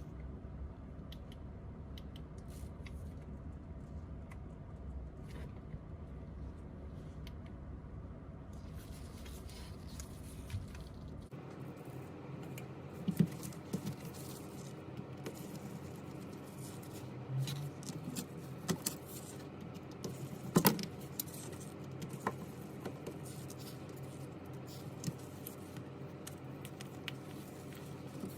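Small tools and phone parts being handled at a workbench: scattered light clicks, taps and scrapes, with a few sharper clicks in the middle. Beneath them runs a steady low hum, which changes abruptly a little before the middle.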